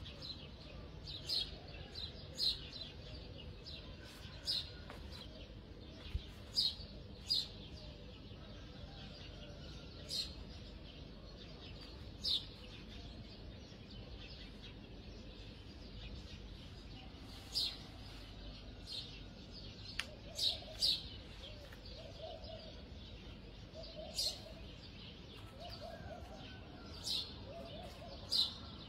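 A small bird chirping: short, high, sharp chirps every one to three seconds over a faint steady background, with a few soft low calls about two-thirds of the way through.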